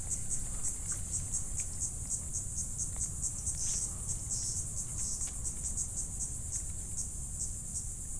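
Insects chirping in a steady rhythm, about four to five high pulses a second, over a low rumble.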